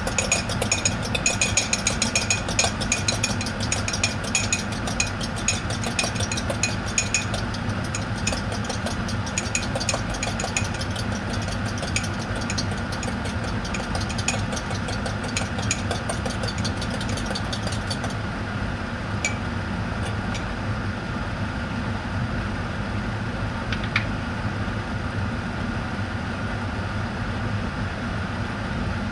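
A fork clinks rapidly against a ceramic cup as eggs are beaten, over a steady mechanical hum. The clinking thins out and stops about two-thirds of the way through, leaving only the hum and a couple of single clicks.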